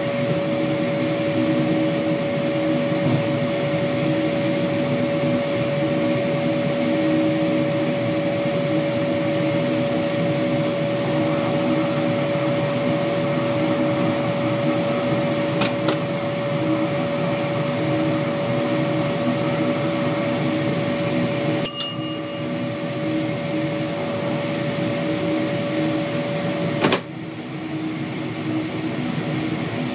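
NMBS MR62 diesel railcar under way, heard in the driver's cab: a steady engine drone with a high, even whine above it. A few seconds before the end there is a sharp click, the whine stops and the drone becomes quieter.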